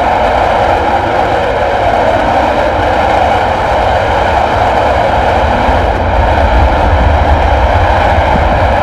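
Panavia Tornado jet's twin RB199 turbofan engines running loud and steady, with a low rumble underneath.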